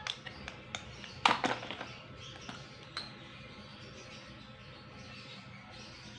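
A few sharp clicks and knocks in the first three seconds, the loudest a double knock a little over a second in, then only faint steady background noise.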